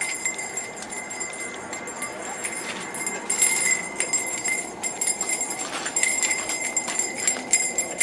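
Small metal bells worn on the body jingling and clinking as the wearer moves, with a thin ringing that hangs on; the jingling gets busier from about three seconds in.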